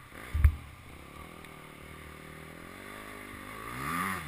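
Dirt bike engine revving unevenly as the bike drives into a fast, flooded creek, its pitch rising and falling and growing louder near the end, over the rush of the floodwater. A sharp thump about half a second in.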